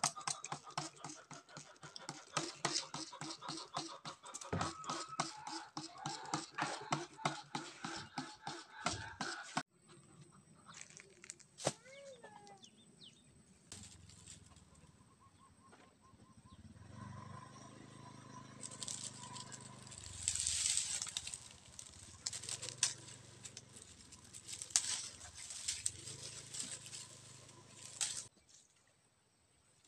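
Chickens clucking in quick repeated calls. After a sudden cut, quieter rustling of cloth and dry palm fronds as rags are dropped onto a heap, with a faint steady high tone behind it.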